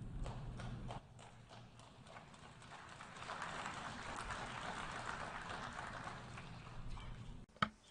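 Faint scattered applause in a large hall, swelling a few seconds in and then dying away, with a short knock near the end.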